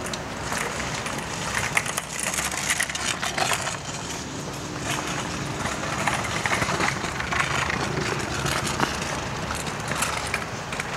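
Outdoor city ambience: a steady hum of distant traffic, with scattered short clicks and knocks.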